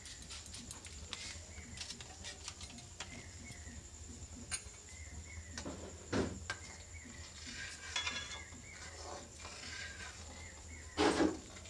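A metal spoon stirring and scraping in a steel wok of hot milk as it is curdled into chhana, with scattered light clinks and two louder scrapes, about six and eleven seconds in.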